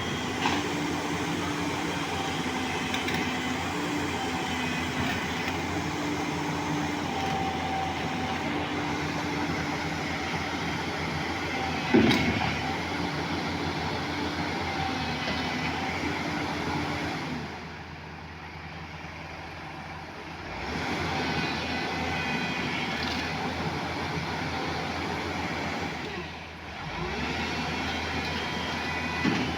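JCB excavator's diesel engine running under working load, its pitch stepping up and down, with one loud clank about twelve seconds in. The engine drops quieter for a few seconds past the middle, then comes back up.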